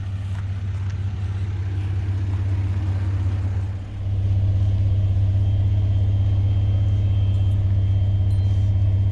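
A steady low motor hum that dips briefly about four seconds in, then comes back louder and holds steady.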